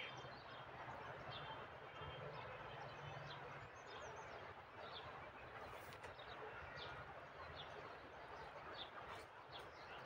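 Faint outdoor ambience with scattered short bird chirps, and a low hum during the first few seconds.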